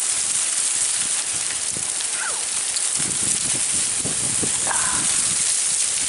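Strong gusting wind rushing through the trees and sweeping dry fallen autumn leaves, a steady loud rustling hiss.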